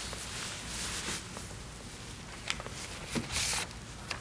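Sheets of paper rustling as they are handled and leafed through, in two soft swells, with a couple of light taps.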